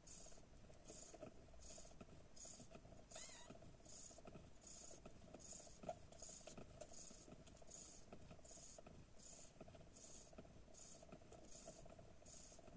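A nursing mother cat purring faintly, with a soft rhythmic hiss about twice a second.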